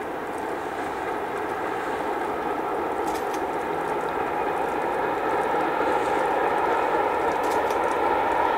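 SBB A 3/5 steam locomotive and its carriages running past, a steady rumble of exhaust and wheels that grows louder as the train comes nearer.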